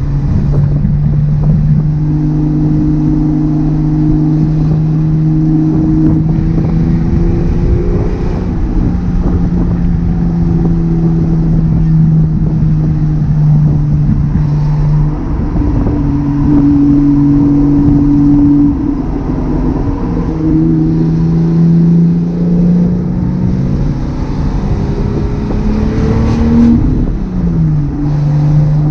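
1978 Datsun 280Z's straight-six engine and exhaust running under cruising load. The engine note holds a steady pitch for several seconds at a time, then steps or glides up and down as the throttle and revs change. About 26 seconds in the revs drop and then pick up again.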